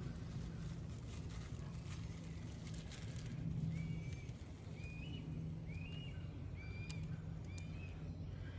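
A bird calling in the background, a run of about six short arched notes roughly one every second, over a steady low rumble and a few sharp clicks.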